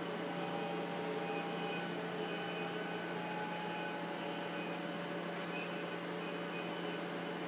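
Steady machine hum of lab equipment around an automated assembly gantry, with faint whining tones that come and go.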